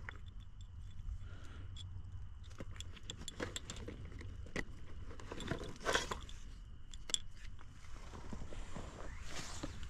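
Rummaging by hand in a backpack: fabric rustling with many small clicks from the gear inside, loudest about six seconds in.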